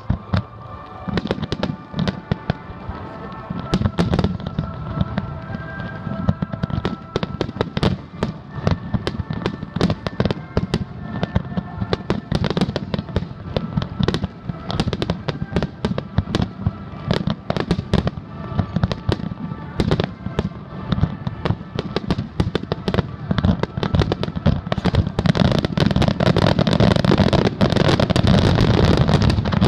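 Aerial fireworks display: shells bursting in quick succession, a steady stream of sharp bangs and crackles that grows denser and louder near the end in a barrage.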